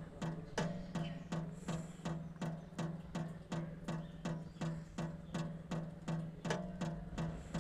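Rhythmic music with a steady percussive beat, about three strikes a second, over a sustained low tone.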